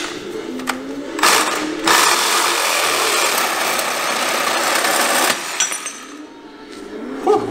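Milwaukee M18 cordless reciprocating saw cutting into the steel frame of an ATV: a short burst about a second in, then a steady run of a few seconds that stops abruptly.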